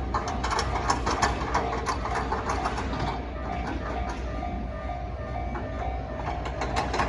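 A train passing over a railway level crossing, its wheels clacking over the rail joints, while the crossing's warning bell rings in a quick, evenly repeating ding.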